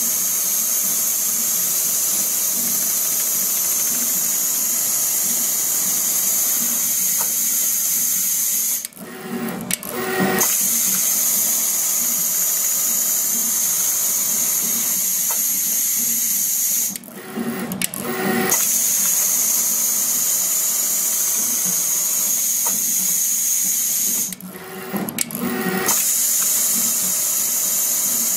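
Richpeace automatic pattern sewing machine running steadily as it stitches a shoe upper. The running sound breaks off briefly three times, about every eight seconds, with short irregular mechanical sounds in each break.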